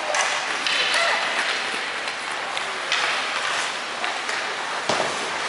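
Ice hockey play in an indoor rink: skate blades scraping the ice in swelling hisses, a few sharp clacks of sticks on the puck, and indistinct voices of players and spectators.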